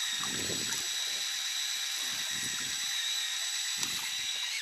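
Electric fishing reel's motor winding line in under the load of a heavy cod, a steady high whine that cuts off suddenly at the end.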